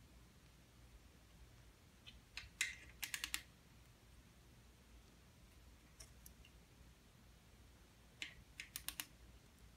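Ratchet head of a torque wrench clicking on a connecting-rod cap bolt: two bursts of quick, sharp clicks, about two and a half seconds in and again near the end.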